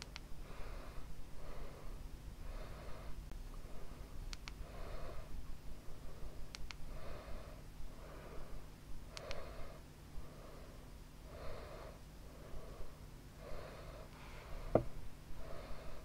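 A person breathing steadily close to the microphone, with a few faint sharp clicks and a single low thump late on.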